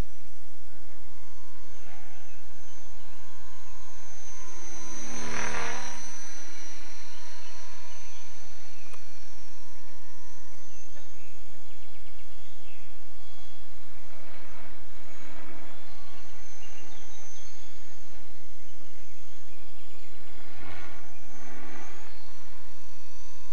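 Small propeller aircraft's motor and propeller running steadily with a high whine, with sweeping changes in pitch about five seconds in, again around fifteen seconds, and near the end.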